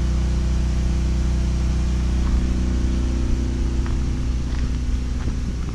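A 7000-running-watt gasoline generator running steadily: a constant, loud low engine drone with no change in speed.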